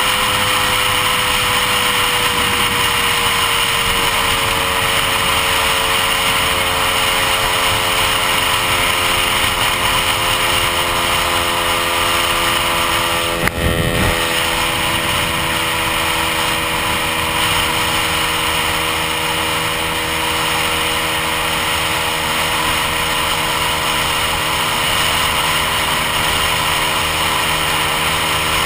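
Lambretta scooter's AF Rayspeed Rapido 225 two-stroke engine running steadily at cruising speed, its pitch easing slightly in the first few seconds, under a rush of wind and road noise. A single short knock about halfway through.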